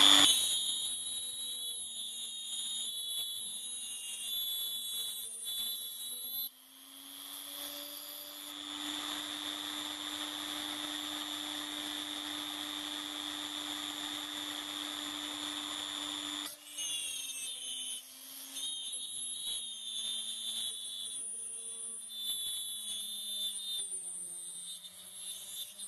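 Hilda rotary tool running at low speed with a steady high whine, drilling radial holes in a brass end plate. Its pitch rises about a third of the way in, holds for about ten seconds, then drops back and sags lower near the end, the tool slowing as the bit takes load.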